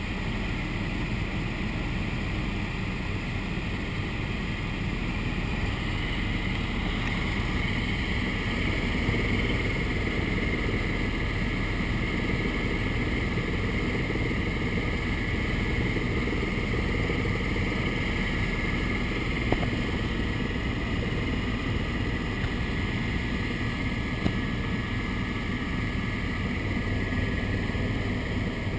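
Helicopter engine and rotor noise heard from inside the cabin, running steadily, with a high whine that grows stronger about six seconds in.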